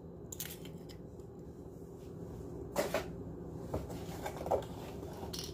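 A few light knocks and clunks of kitchen containers being handled on a countertop, the clearest about three seconds in, over a low steady hum.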